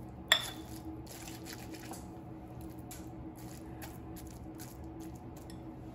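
Metal potato masher pressing soft cooked carrots in a glass bowl: repeated soft, squishy strokes, with one sharp clink of the masher against the glass shortly after the start.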